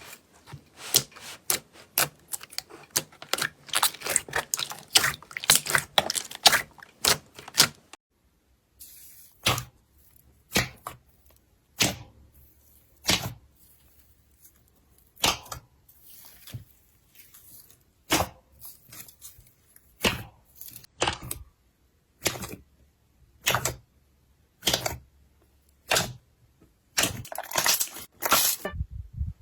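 Hands squeezing and poking slime: a dense run of crackling clicks and pops, then after a brief pause about eight seconds in, separate sticky pops about once a second.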